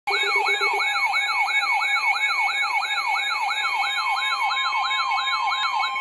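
Several NOAA weather alert radios sounding their alarms together for a severe thunderstorm warning. A siren-like rising sweep repeats about three times a second over steady high warning tones, with a short low pulsing at the start. The sweep stops near the end, leaving a steady tone.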